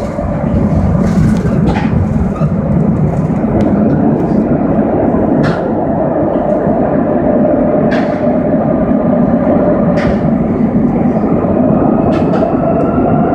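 Madrid Metro Line 3 train running through a tunnel, heard aboard: a loud steady rumble of wheels on rail under a motor whine that slowly rises in pitch as it gathers speed, with sharp clicks every couple of seconds.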